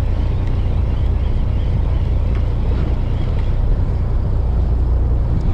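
Fishing boat's engine running steadily: a constant low hum.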